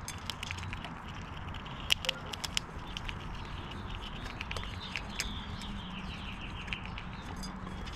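California ground squirrels cracking and chewing seeds and nuts at a feeder tray: irregular sharp clicks and crunches, with a quick cluster about two seconds in.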